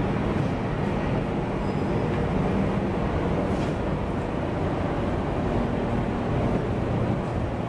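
Steady low rumble and hum of a ferry's machinery on its enclosed vehicle deck.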